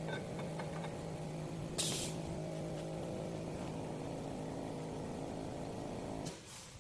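Automatic CO2 pipe-flange welding rig running with a steady hum and noise. A short, sharp hiss of air comes about two seconds in, and another near the end as the running noise stops.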